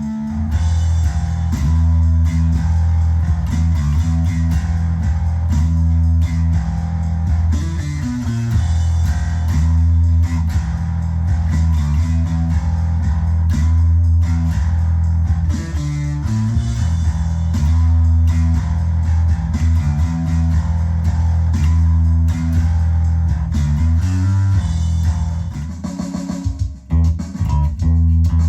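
Electric bass guitar played through an amp, a riff of sustained low notes repeating about every two seconds, turning choppier near the end.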